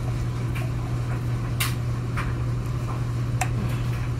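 Steady low hum, with a few light clicks and taps from a wine bottle and stemless glass being handled; the sharpest tap comes about a second and a half in.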